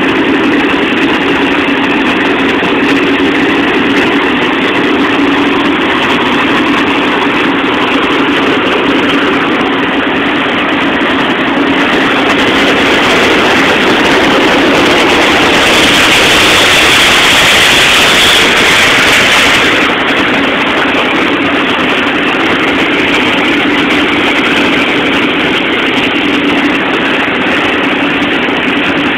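Engine running steadily and loudly. It swells into a louder, hissier rush for several seconds past the middle, then drops back abruptly.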